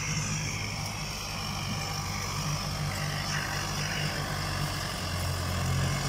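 Massey Ferguson tractor engine running steadily at a low, even speed, getting a little louder near the end.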